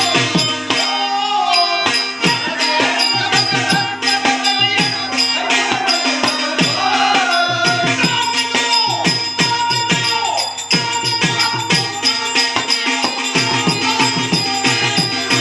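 Folk-theatre music: tabla drumming, the bass drum's strokes bending down in pitch, with a steady drone, a wavering sustained melody and a constant jingling rattle.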